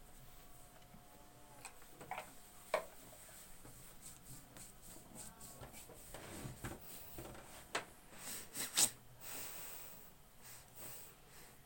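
Soft rubbing and rustling of hands working during a massage, with a few short clicks or knocks.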